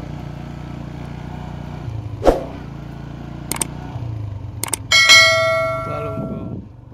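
A steady low hum with a few sharp clicks, then a ringing metallic clang about five seconds in that fades away over about a second and a half.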